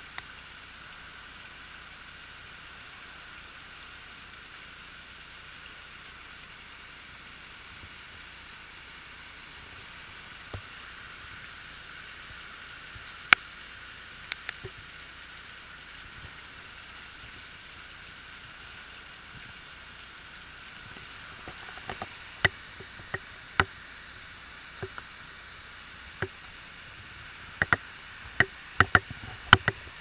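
Steady hiss of a waterfall's falling water. Scattered sharp clicks come over it, growing more frequent in the last ten seconds.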